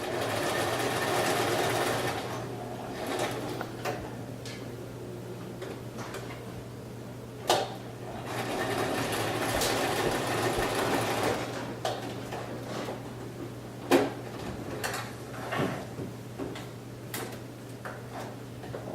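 Electric sewing machine running in two stretches of a few seconds each, the second starting about eight seconds in, with scattered clicks and knocks between them over a steady low hum.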